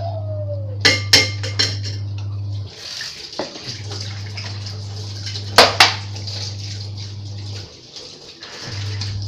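Washing up at a kitchen sink: a strainer and dishes clatter against each other and the sink, sharply about a second in and again past the middle, while tap water runs. Under it a steady low hum cuts out twice and starts again.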